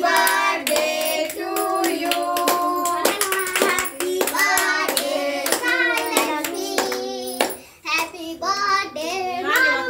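Several voices singing together, with hands clapping along in time; the singing breaks off briefly about eight seconds in and picks up again.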